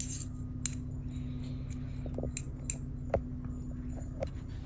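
Scattered light clicks and clinks of painting tools against a small dish while paint is being readied, over a steady low hum.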